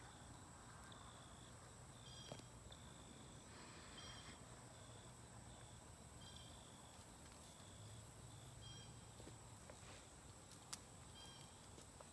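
Near silence: faint outdoor ambience with short high chirps recurring every second or so over a steady faint high whine and a few soft clicks.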